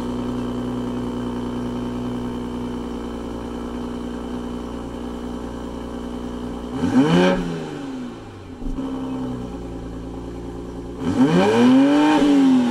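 Toyota GR Supra (MKV) exhaust idling steadily after startup, still on its stock downpipe. About seven seconds in the engine is revved once briefly, and near the end it is revved again for longer, the pitch climbing and falling back each time.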